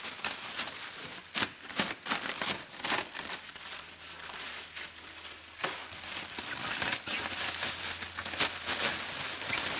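Clear plastic wrap crinkling and rustling in irregular crackles as it is pulled and bunched off an engine by hand.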